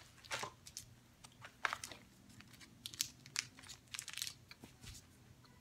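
Faint, scattered crinkles and clicks of a candy wrapper being handled, irregular and sharp.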